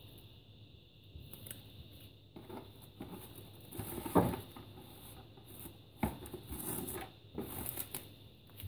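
Plastic cling film crinkling and rustling in scattered short crackles as it is pulled over and folded around a ball of soft dough, the loudest crackle about four seconds in.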